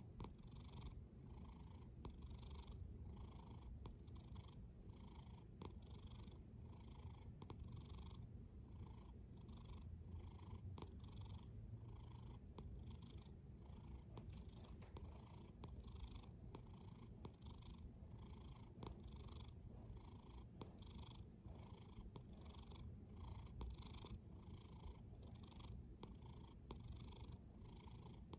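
A cat snoring softly in its sleep: a quiet, even rhythm of about one breath a second over a low, purr-like rumble.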